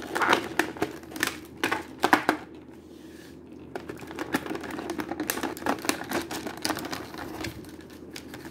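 Clear plastic clamshell tray crackling and clicking in quick, irregular snaps as an action figure is worked out of it by hand. There is a short lull about two and a half seconds in.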